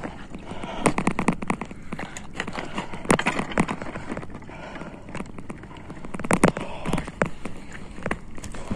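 Footsteps and the clatter of handled gear on the shore: irregular knocks and scrapes, louder about a second, three seconds and six and a half seconds in.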